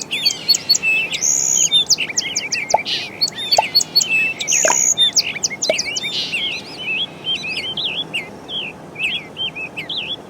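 Several birds singing at once: a dense chorus of quick chirps, trills and short whistles that starts suddenly.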